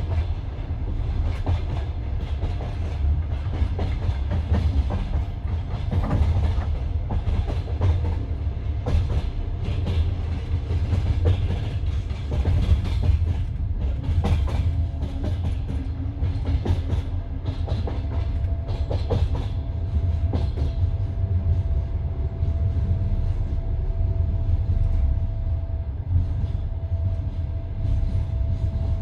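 Passenger train carriage running along the track: a steady low rumble of wheels on rail with irregular clicks and clacks over rail joints. A thin steady tone joins in about two-thirds of the way through.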